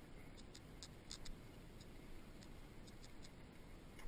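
Faint low rumble of a bicycle rolling along a wet road, with light, irregular high ticks a few times a second.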